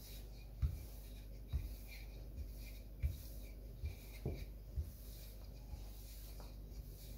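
Wooden rolling pin rolling out shortcrust pastry dough on a floured worktop: a faint rubbing as it rolls, with a soft low thud at each stroke, about once a second.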